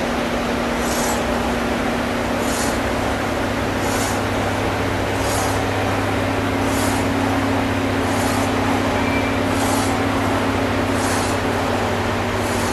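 Steady hum and hiss of background noise, with a short hiss repeating about every second and a half in time with the reps of a seated Smith machine shoulder press.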